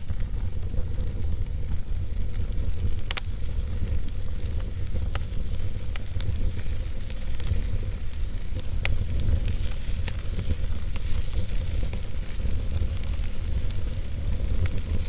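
Fire burning in a fireplace: a steady low rumble with scattered sharp crackles and pops at irregular intervals, one of the sharpest about three seconds in.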